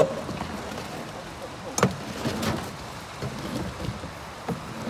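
Water splashing and dripping as a heavy rusty metal gate is hauled up out of the water on a magnet-fishing rope and chain. A sharp knock comes about two seconds in.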